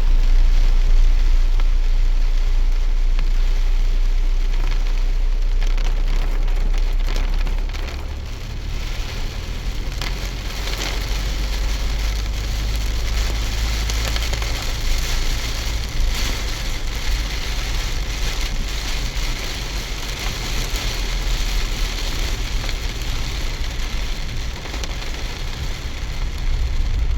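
Heavy rain pattering down, with a steady deep rumble underneath that eases about eight seconds in.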